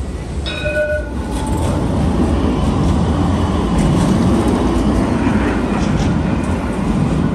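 A low-floor tram running on street track, its rail noise building from about a second and a half in to a loud, steady rumble. A short ringing tone sounds about half a second in.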